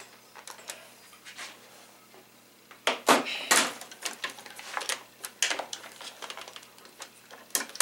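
Light handling noise: scattered small clicks and knocks with some rustling, and louder knocks about three seconds in, about five and a half seconds in, and near the end.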